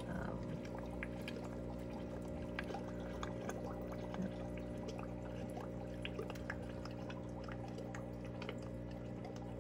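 Air-driven aquarium sponge filter bubbling: a steady trickle of water with many small irregular pops, over a low steady hum.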